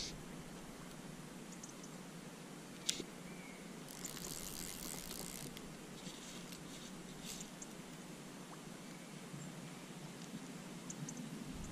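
Faint handling noise of fly line being hand-retrieved through the fingers, over a quiet background. One sharp click about three seconds in, then a brief hiss a second later, with a few small ticks.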